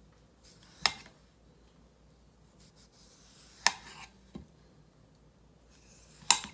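Knife slicing down through a block of soaked floral foam in three strokes, each a short scraping hiss ending in a sharp click.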